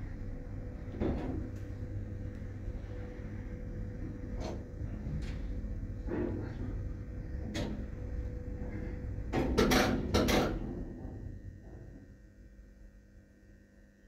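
Old passenger lift (built 1979) running with a steady low rumble and a faint whine, with a few single clicks. A burst of loud clunks and clicks comes about ten seconds in as it stops. The rumble then dies away to a low electrical hum.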